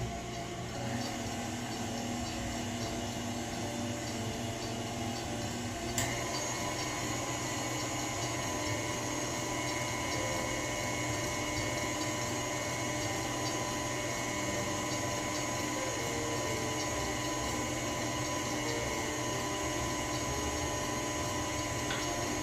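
Stand mixer motor running steadily, its whisk beating egg whites and sugar into meringue. A click about six seconds in, after which the motor's whine changes pitch.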